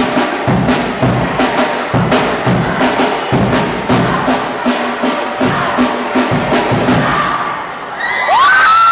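Percussion-driven cheerdance music with a steady beat, about two beats a second, over crowd noise. Near the end the music drops away and the crowd breaks into loud cheering and screaming.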